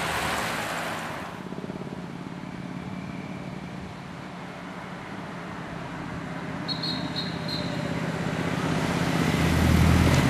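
Motor vehicles running past on the road: a loud rush of passing traffic at the start, then a steady engine hum that grows louder toward the end as an escort motorcycle approaches. A few brief high chirps sound about two-thirds of the way in.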